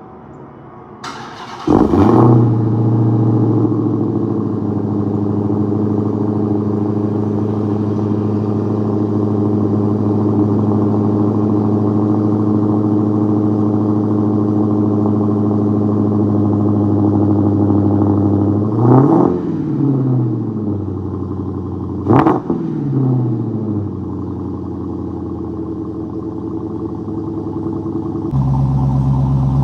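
Dodge Challenger SRT Hellcat's supercharged 6.2-litre Hemi V8, on stock exhaust, starts up about two seconds in and settles into a steady idle. Later it gives two short throttle blips a few seconds apart, and near the end the note steps up louder and deeper.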